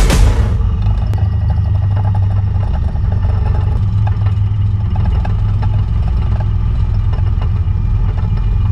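An M1 Abrams tank driving cross-country, heard from on board: a loud, steady, heavy low engine rumble with a continuous rattle and clank from its tracks.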